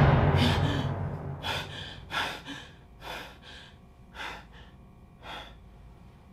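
A person gasping and panting, with short heavy breaths about once a second that grow quieter. It opens on the fading tail of a loud boom.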